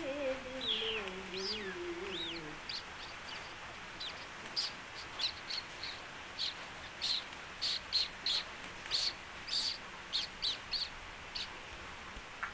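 A small bird chirping again and again in short, high chirps, about one or two a second. In the first two seconds a low voice hums a falling note.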